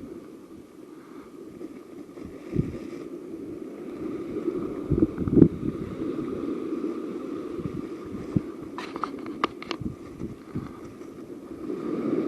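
Wind buffeting the microphone as a low rumble, with scattered dull thumps and a short run of sharp crackling clicks about nine seconds in.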